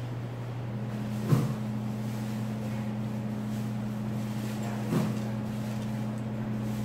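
Steady low machine hum made of two tones, the higher one joining under a second in, with two short knocks of tableware, the first about a second in and the second about five seconds in.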